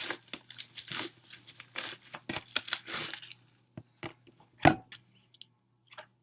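Packaging on a music album being torn and crinkled open for about three seconds, followed by a few light taps and one louder thump about two-thirds of the way through as it is handled.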